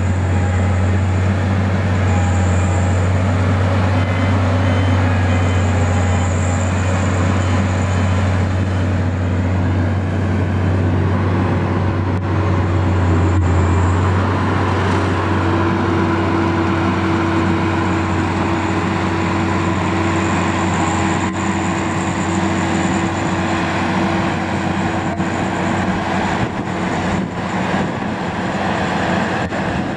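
Ploeger MKC-4TR self-propelled spinach harvester running steadily as it cuts, a loud, constant diesel engine drone. About halfway through, the deep drone weakens and a steady higher whine comes in, and a few faint knocks sound near the end.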